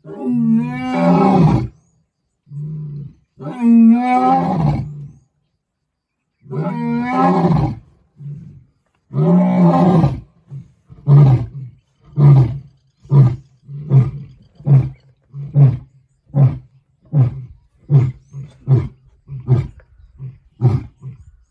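Male lion roaring to call a companion lion. There are four long roars, then a run of about a dozen short grunts at roughly one a second that grow weaker toward the end.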